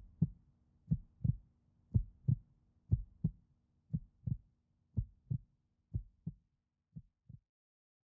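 Heartbeat, a double lub-dub thump about once a second, growing fainter and stopping shortly before the end.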